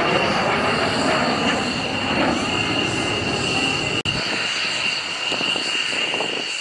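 Aircraft engine noise: a steady rushing sound with a high whine over it. It breaks for an instant about four seconds in, then carries on with less low end.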